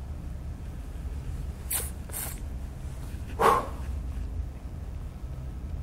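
Steady low hum through a lectern microphone, with two short soft hisses about two seconds in and a brief throat sound from the man at the microphone about three and a half seconds in.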